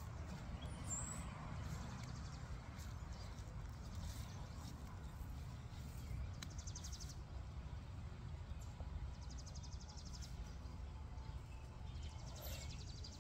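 Outdoor background: a steady low rumble, with short, high, rapid bird trills about halfway through and again near the end.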